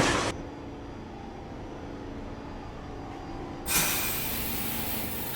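New York subway train standing after its doors shut, with a steady low hum of its equipment. About two thirds of the way in a sudden loud hiss starts and slowly eases, the air brakes releasing as the train gets ready to pull away.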